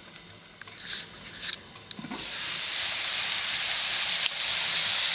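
King oyster mushrooms frying in an open pan as their juice cooks off. A few faint clicks and a knock of the pan lid come about two seconds in; then the sizzle swells into a loud, steady hiss as the pan is uncovered.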